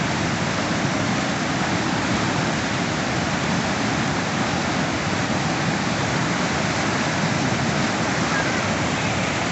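Whitewater rapid rushing over boulders at about 1850 cfs, a steady, unbroken wash of water noise.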